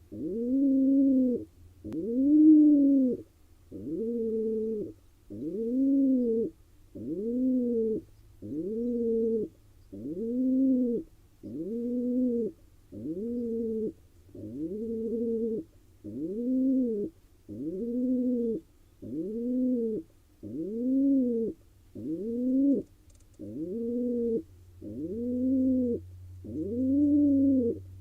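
Male pigeon's courtship cooing: a long, regular series of low coos, each rising and then falling in pitch, about one every second and a half. A faint steady low hum runs underneath.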